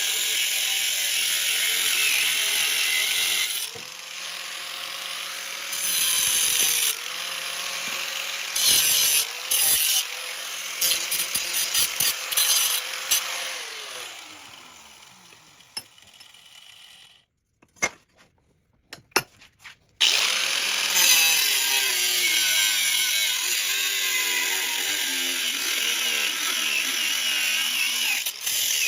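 A power tool running in several stretches, with a steady motor tone that winds down about twelve seconds in. It cuts off to near silence with a few clicks for a few seconds, then starts again and runs on.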